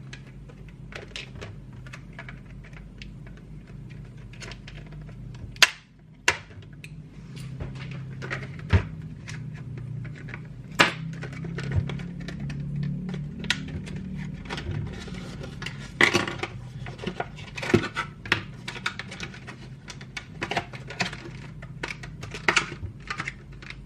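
Plastic blister packaging of a winch remote module being handled and opened: scattered clicks, crinkles and taps, with a sharp snap about six seconds in, over a low steady hum.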